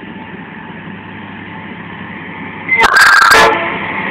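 EMD GT-22CW diesel locomotive approaching with a steady rumble, then a short, loud horn blast about three seconds in, lasting under a second.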